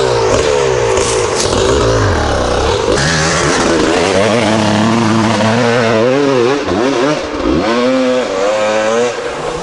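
Enduro dirt bike engine revving hard up a steep, loose hillclimb, its pitch rising and falling repeatedly as the rear wheel spins and grips, fading near the end as the bike climbs away.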